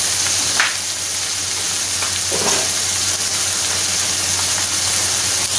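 Sliced bitter gourd and onions sizzling in a pan over high heat, with a little water just added, making a steady hiss.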